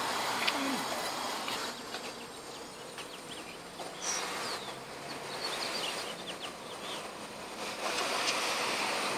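Road traffic passing on a nearby street, a steady rush that swells and fades as vehicles go by, with faint short high chirps about four to six seconds in.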